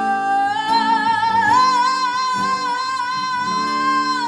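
A woman singing one long, high held note with vibrato, stepping up in pitch twice early on and then holding it until near the end, over acoustic guitar accompaniment.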